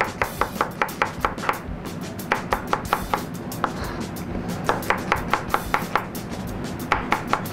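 Chef's knife slicing quickly through a yellow onion and tapping on a cutting board, about six even taps a second in several short runs with brief pauses between them.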